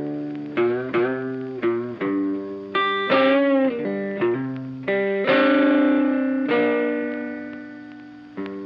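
Background music: a funky electric guitar with effects playing short plucked chords and notes, a bending phrase, then a long held chord that fades before a new chord comes in near the end.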